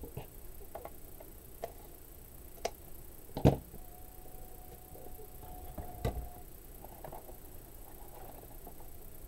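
Hands handling wired ribbon and craft tools on a cutting mat: scattered light taps and rustles, with two sharper knocks about three and a half and six seconds in. A faint thin steady tone runs for about two seconds between the knocks.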